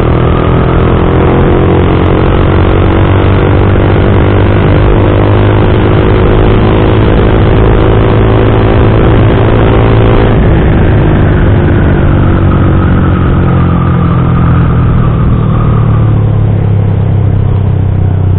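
Yamaha MX King 150's single-cylinder four-stroke engine through a custom aftermarket exhaust, ridden hard with a loud, deep, bassy note. The revs climb, drop sharply about ten seconds in as at a gear change, climb again, then fall away near the end as the throttle closes.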